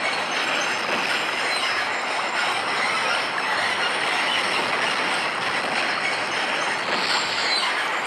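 Steady hiss of heavy rain and traffic on a wet road, even and unbroken throughout.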